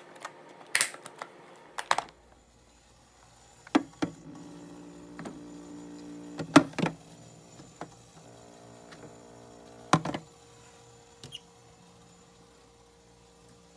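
Scattered sharp taps and clicks, with a low hum underneath from about two seconds in.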